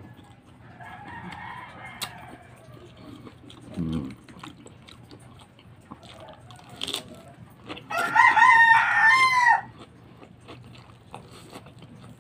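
A rooster crows once, about eight seconds in, a wavering call lasting over a second and a half. Around it are quieter crunching and mouth sounds of a man chewing raw napa cabbage leaves.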